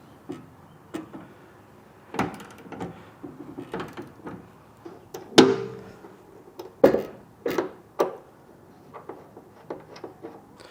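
Hand wrenches clicking and knocking on metal as a nutsert is tightened into the Humvee's body: a string of irregular sharp clicks, the loudest about five and a half seconds in with a short ring.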